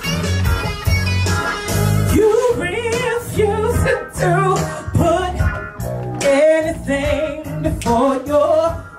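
A woman sings into a handheld microphone, holding long, wavering notes over an instrumental backing with a steady, rhythmic bass line.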